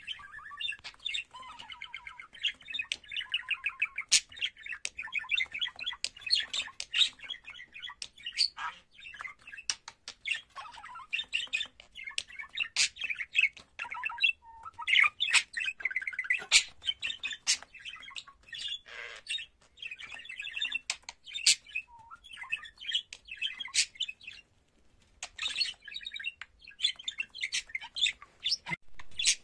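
Male budgerigar warbling: a long, rambling run of chatter, squeaky chirps and sharp clicks, with short breaks about fourteen seconds in and again near twenty-four seconds.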